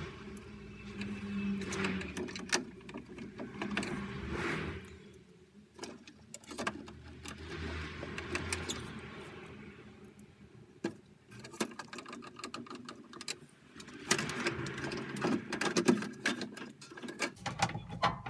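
A hand screwdriver turns screws into the plastic control-panel housing of an Ariston Microgenus boiler, with irregular clicks and knocks as the plastic panel is handled. The knocks are loudest near the end, as the front cover goes on.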